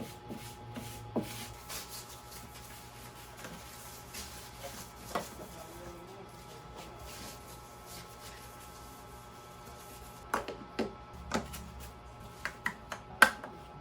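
Light clicks and taps of small objects being handled over a faint steady hum: a few scattered taps, then a quick cluster of them in the last few seconds, the loudest near the end.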